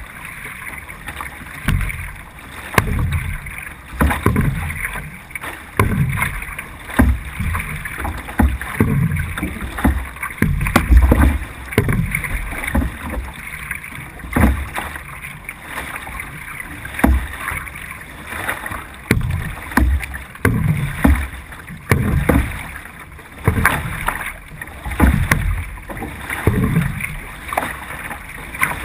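C1 sprint canoe being paddled hard, heard from a camera on the bow: each single-blade stroke sets off a low surge of water rushing and splashing, about one a second, over a steady wash of water along the hull.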